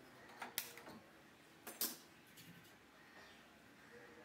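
A few sharp clicks of a hand-held gas lighter being pressed to light a gas stove burner.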